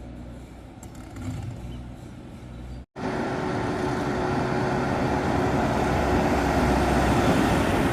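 Heavy construction machine's diesel engine running: a low, steady hum, then after an abrupt cut about three seconds in, much louder engine and machinery noise with a steady whine.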